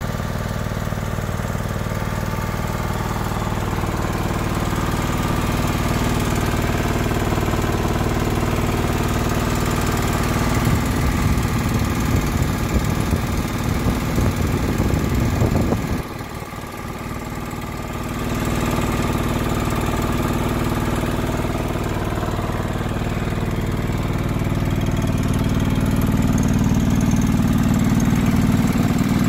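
A John Deere 425 lawn tractor's 20 hp liquid-cooled OHV V-twin engine running steadily. The level dips for a couple of seconds just past halfway through, then picks up again.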